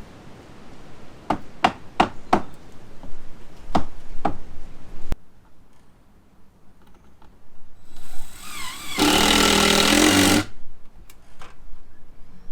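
A run of sharp knocks, about eight in five seconds, like tool strikes on the window framing. After a cut, a power tool winds up briefly and then runs loud for about a second and a half before stopping.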